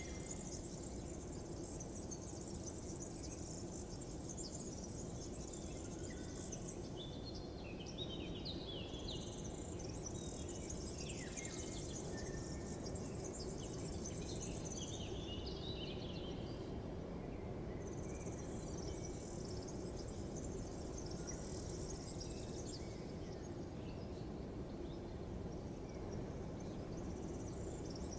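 Outdoor nature ambience: birds chirping in short falling notes, and high insect-like trills that come and go in stretches of several seconds, over a steady low background rumble.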